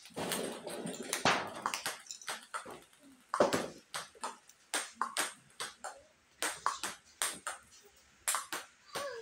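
Table tennis balls clicking off paddles and bouncing on the table in a quick, irregular series, a few hits a second, as two players rally.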